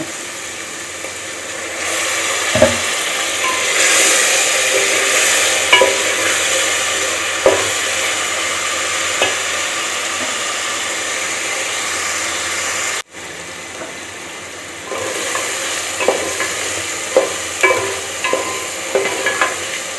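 Diced potatoes frying in oil and masala in a metal pot, sizzling steadily, while a plastic spatula stirs and knocks against the pot. The sizzle gets louder about two seconds in, cuts out abruptly past the middle, then returns with more frequent spatula knocks near the end.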